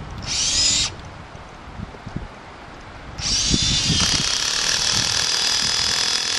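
Cordless DeWalt drill/driver spinning a nut driver to tighten the rubber boot coupling on the pond pump's PVC pipe. A short burst of run with the pitch rising comes about half a second in. A longer steady run starts about three seconds in.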